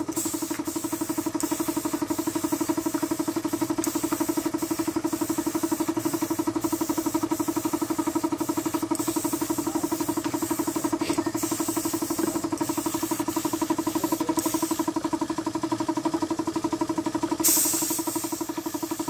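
Air compressor running steadily under a paint spray gun that hisses in many short bursts and a few longer passes as the trigger is worked, spraying paint onto the steel louvres of a metal gate; the longest, loudest spray pass comes near the end.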